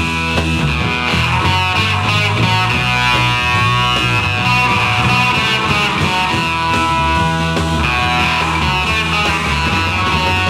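A 1960s garage rock band playing an instrumental passage with no vocals.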